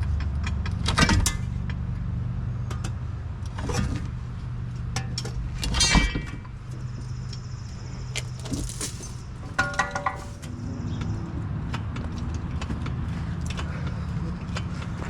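An engine idling steadily under the work, with sharp metallic clanks and clinks from tools on steel during the tractor tire removal, the loudest hits about a second in and around six seconds, and a short ringing clank near ten seconds.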